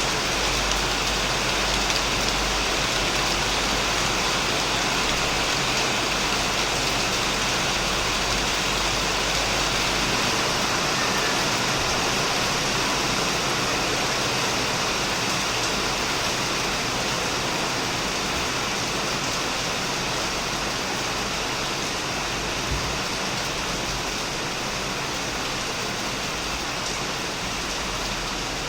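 Heavy, steady rain falling on a shed roof and plants, a dense even hiss of many drops.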